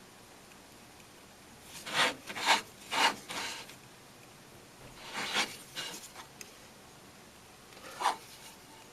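Short scraping strokes of a metal tool on a ring's metal prongs as they are worked down to set a sapphire: three strokes about two to three and a half seconds in, a longer bout around five to six seconds, and one more near the end.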